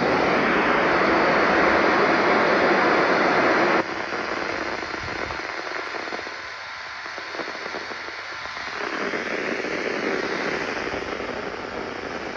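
Radio static: a loud, even hiss that drops abruptly to a fainter hiss about four seconds in.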